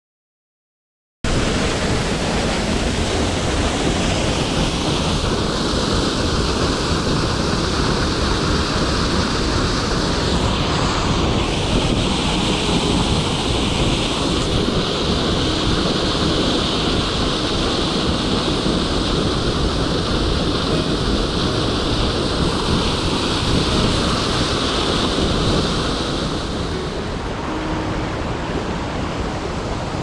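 Steady rush of water pouring down a waterfall, a dense even noise that cuts in suddenly about a second in.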